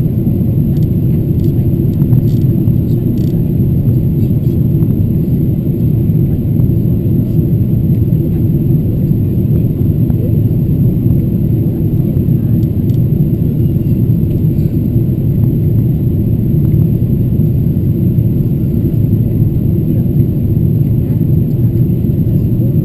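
Steady low cabin roar of a Boeing 777-200ER on its approach descent: its Rolls-Royce Trent 895 engines and the airflow past the fuselage, heard from a window seat.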